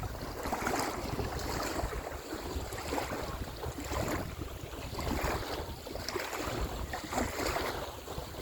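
Wind buffeting the microphone, with small waves washing and lapping at the shoreline in repeated, irregular surges.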